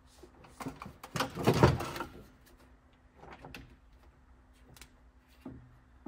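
Clunks and a clattering rattle as a portable jump pack and its cable clamps are handled and hooked up, loudest about a second and a half in, with a few lighter knocks later. A faint steady hum sits underneath.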